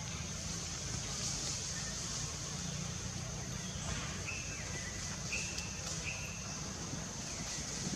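Forest ambience: a steady high-pitched insect drone over a low rumble, with three short whistled bird calls about halfway through.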